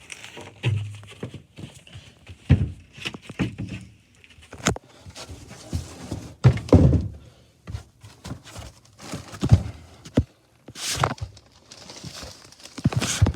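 Irregular knocks and thumps, a dozen or so sharp hits spread unevenly, with heavier low thuds and brief scuffing between them.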